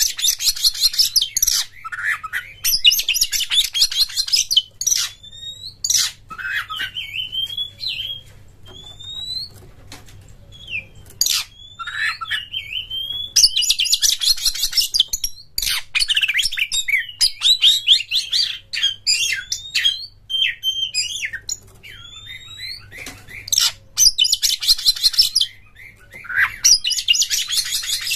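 Magpie-robin (kacer) singing a loud, varied song: bursts of rapid, dense trills alternate with clear whistled upslurs and short chirps. A faint low hum runs underneath.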